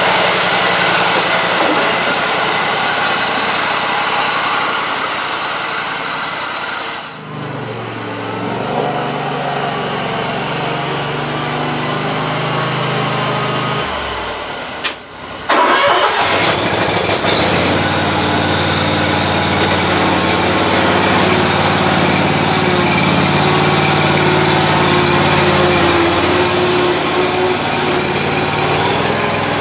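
Engines idling in turn: a pickup truck's engine first, then, after a short break about halfway through, a Scag Tiger Cub zero-turn mower's engine running steadily.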